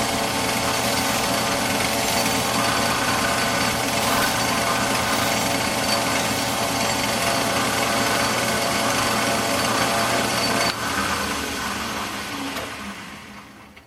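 Metal lathe running, its motor and drive giving a steady whine, while a flat file rasps against the threaded end of the spinning steel stud to chamfer it. About eleven seconds in the filing stops and the lathe is switched off, spinning down to a stop.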